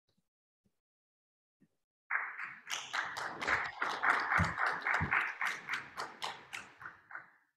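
A small audience clapping, starting about two seconds in and tapering off near the end, with two dull thumps in the middle of it.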